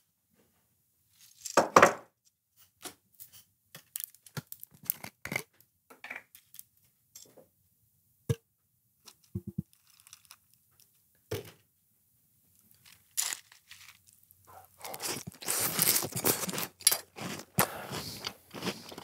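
Breakfast cereal handled and eaten close to a microphone: scattered small clicks and crinkles, then a dense run of crunching in the last few seconds.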